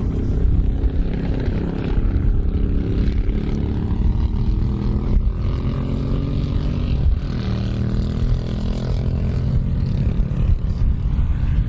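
Britten racing motorcycle's V-twin engine running loudly, its pitch shifting up and down around the middle.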